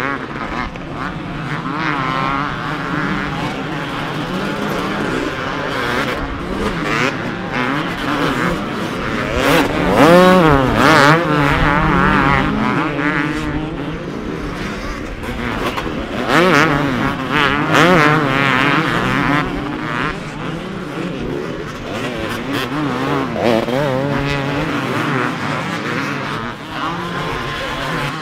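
Several two-stroke motocross bikes racing, their engines revving up and down as riders work the throttle through turns and jumps. The engines are loudest as bikes pass close, about ten seconds in and again around sixteen to eighteen seconds.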